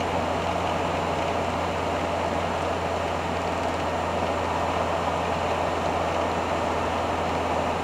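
Fiat Ducato–based 1985 Hobby 600 motorhome cruising at about 77 km/h: a steady low engine drone under even road and wind noise.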